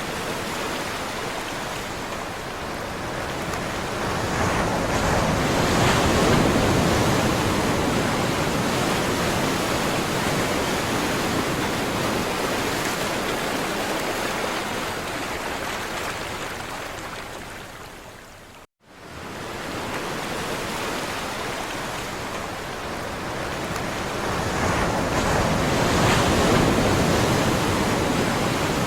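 Sea waves washing in a continuous rush, swelling to a peak twice. There is a sudden brief dropout to silence about two-thirds of the way through, after which the surf fades back in.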